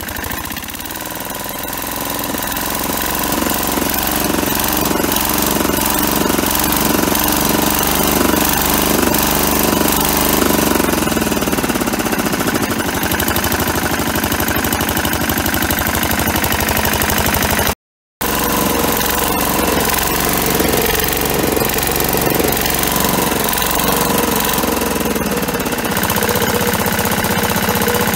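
Lombardini 3LD510 single-cylinder air-cooled diesel engine being revved up and running unevenly at the higher revs, then dropping back to a steady idle about twelve seconds in. It is revved and runs rough again, then falls back near the end. It idles smoothly but runs irregularly when revved: the fault the owner is asking about.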